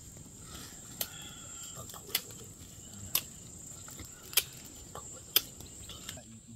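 Insects, likely crickets, buzzing in a steady high drone, with five sharp knocks spaced about a second apart.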